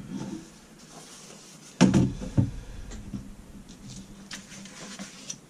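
A clipboard being handled and set down on a workbench: a sharp knock about two seconds in, a second knock half a second later, then a few light clicks and rustling.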